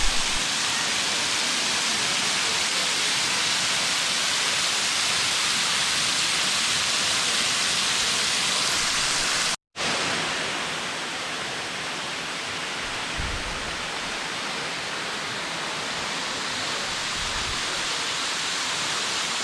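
Moore Cove Falls pouring down in a dense, steady rush of water, heard from behind the falling curtain of water. It drops out briefly about ten seconds in and comes back a little softer.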